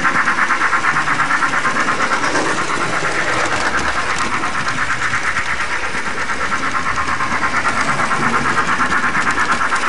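The built-in sound module of an HO-scale DC Thomas model locomotive plays a quick, steady steam-locomotive chuff, several even beats a second.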